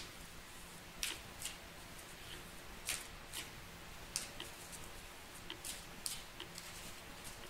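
A deck of oracle cards being shuffled by hand: faint, crisp flicks and snaps of card against card, coming irregularly about once a second.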